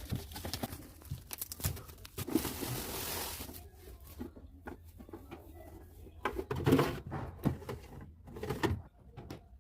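Handling noises while unboxing a new refrigerator: scattered clicks and knocks, a brief rustle of packaging about two and a half seconds in, and a cluster of louder knocks near the end.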